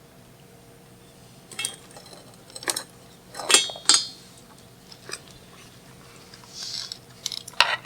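Tableware clinking and clattering: a series of separate sharp clinks, the loudest two in quick succession about midway with a brief metallic ring, as utensils knock against a pot and dishes during a meal.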